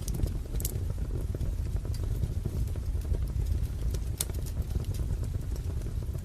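Wood fire burning in a fireplace, with a steady low rumble of flames and scattered sharp crackles and pops. The loudest pop comes a little past four seconds in.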